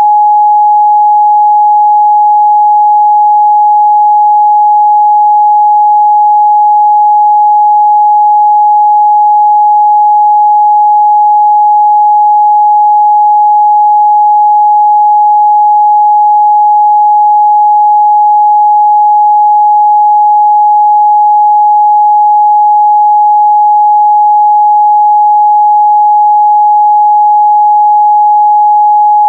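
Steady, loud 838 Hz sine-wave test tone: a single pure pitch held without change, with no harmonics.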